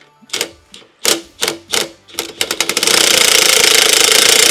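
Cordless impact wrench unbolting a tight shipping bolt: a few short trigger bursts coming closer together, then about three seconds in it settles into continuous fast hammering as the wrench's impact mechanism works the bolt loose.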